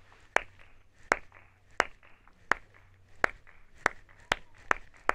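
Hand claps, about nine single sharp claps, speeding up gradually toward the end, made to show the good acoustics of an old stone stage.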